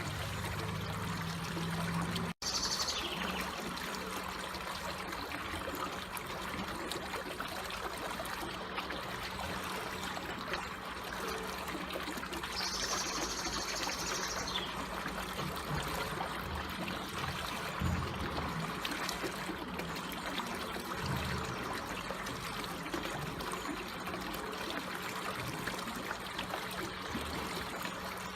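Water trickling and flowing slowly and steadily, with an even rush. It cuts out for an instant about two seconds in.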